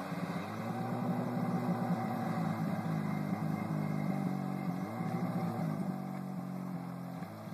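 Diesel jet ski's engine running on the water, its note rising and falling as the throttle changes.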